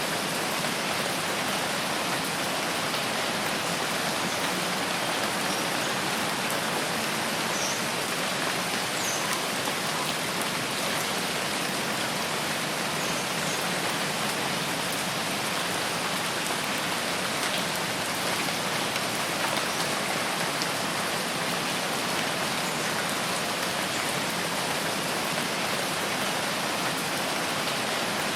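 Steady rain falling, an even, continuous hiss of drops with no change in strength.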